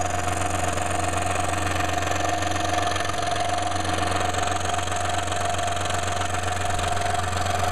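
Electric power saw running steadily while cutting a wooden jigsaw puzzle, a constant motor hum with a steady high tone.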